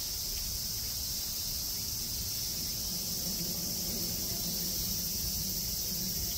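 Steady chorus of night insects such as crickets, a dense high-pitched shrill that goes on without a break, over a low rumble.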